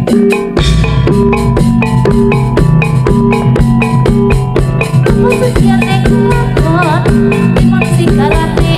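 Loud amplified Javanese gamelan music accompanying a jaranan horse dance: a fast, even beat of struck metallophone and drum strokes over sustained gong-like bass tones, with a wavering melodic line joining in the last few seconds.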